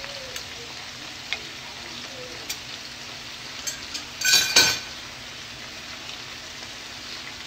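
Chicken sizzling in a stainless frying pan, with a few light clicks of metal utensils against the pan. About four and a half seconds in comes one louder ringing metal clatter of utensil on pan.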